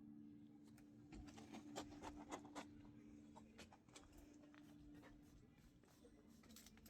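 Near silence: faint scattered clicks and scratchy rustles, a quick cluster of them about a second in, over a steady low hum.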